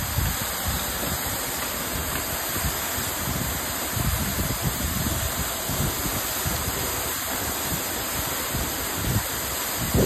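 Aber Falls pouring down its rock face into the plunge pool: a steady rush of falling water, with uneven low gusts of wind buffeting the microphone.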